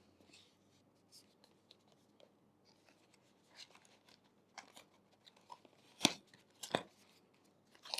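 Light rustling and scraping of packaging being handled as the pouch from a phone's box is opened, with two sharp clicks about six and seven seconds in.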